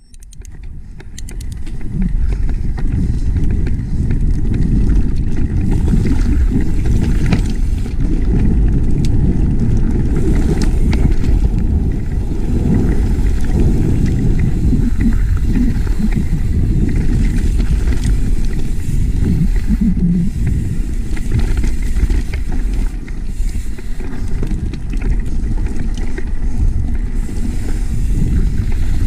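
Wind buffeting the camera microphone over the rattle and rumble of a mountain bike riding down a rough dirt trail, with scattered sharp clicks and knocks from the bike. It fades in over the first two seconds and then runs on steadily.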